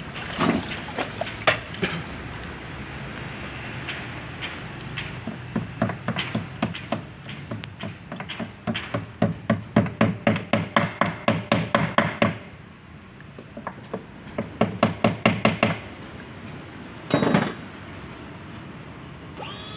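Hand tools knocking and clicking on the metal clamp bracket of a Mercury 75 hp outboard during trim/tilt motor replacement, in quick runs of about three to four knocks a second. A pause, then a second run, and a single longer clatter near the end.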